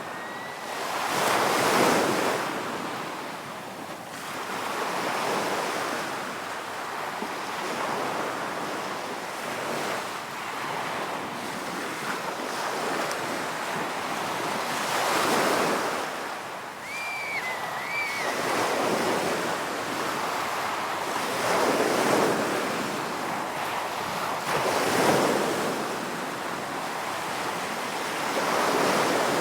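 Ocean surf breaking on a beach, the wash swelling and falling back every few seconds. About two-thirds of the way through, a short, high, wavering whistle-like call is heard over the surf.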